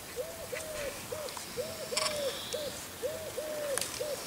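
A bird's low hooting call in three-note phrases, two longer notes then a short one, repeated three times.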